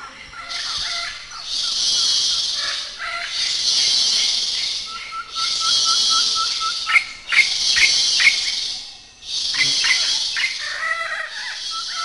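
Tropical rainforest ambience from insects and birds, including parrots. A high insect buzz pulses on for a little over a second about every two seconds. Over it, birds call: a run of quick, even pips in the middle, and sharp squawks a little past halfway.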